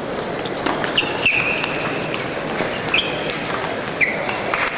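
Table tennis rally: the celluloid ball clicking sharply off the bats and the table, with several short, high squeaks of players' shoes on the sports flooring.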